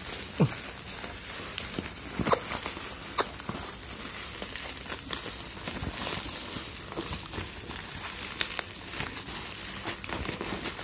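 Plastic bubble wrap crinkling and rustling as it is pulled and folded back off a cardboard box, with scattered sharp crackles; a few louder crackles come in the first few seconds.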